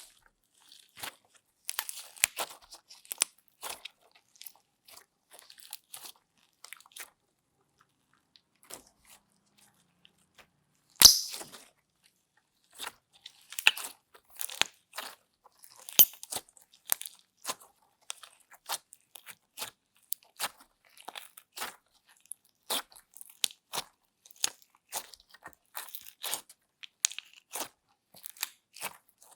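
Slime being squished and handled, giving irregular crunchy crackles and clicks with short gaps between them. One sharper, louder crackle comes about eleven seconds in.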